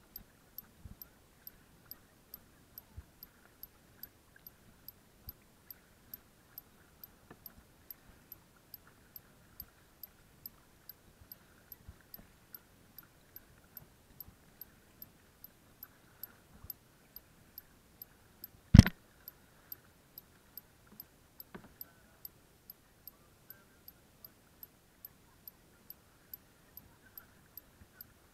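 Muffled, near-quiet sound with a faint, even ticking about twice a second, broken once, about nineteen seconds in, by a single loud knock of the paddle against the plastic kayak.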